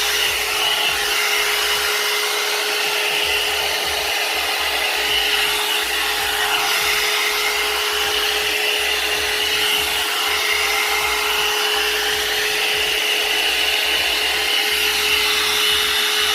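One-step hot air brush (a hair dryer and styler brush with a 1,200-watt motor) blowing on its low setting: a steady rush of air with an even motor hum.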